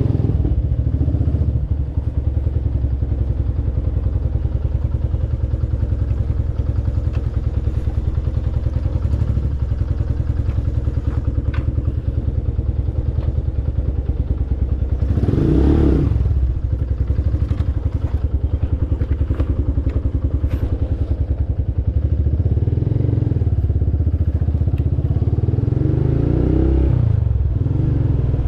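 Motorcycle engine running on the move, steady, swelling briefly about halfway through and rising again over the last few seconds.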